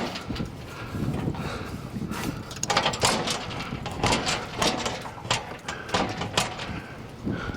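Irregular knocks and scuffs, one or two a second, over a steady rushing haze.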